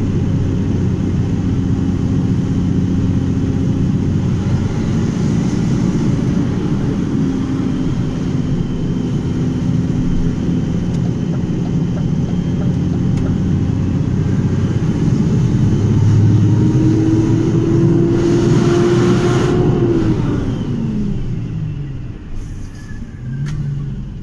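Engine of the vehicle being driven, heard from inside the cab: a steady hum that shifts pitch in steps and climbs slowly, with a rushing noise for about two seconds before the engine note falls away sharply and the sound gets quieter near the end.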